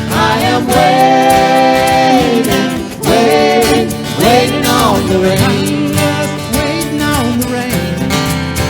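Country song with acoustic guitar and long, held sung notes.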